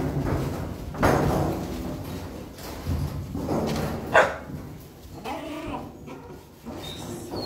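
Puppies barking in a shelter kennel room: a run of barks starting about a second in, with the loudest, sharpest and highest call about four seconds in.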